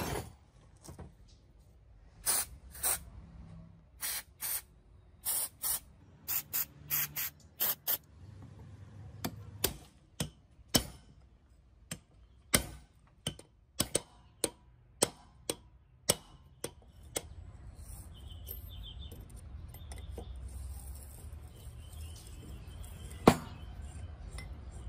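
A string of short hissing bursts, then a run of sharp metal taps and clicks as a chisel works at the hub of a rusted iron double-groove V-belt pulley, with one loud knock near the end.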